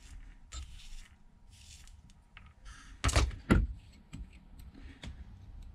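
Small precision tools being handled on a repair bench while screws are picked off a magnet: soft rubbing and light ticks, with two sharp knocks about half a second apart roughly three seconds in.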